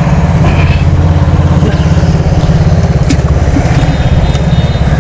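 A small engine running steadily with a fast, even, low chug.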